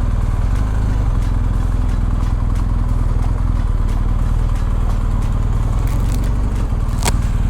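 BMW R1250 GS boxer-twin motorcycle engine running steadily at low revs, with a short click about seven seconds in.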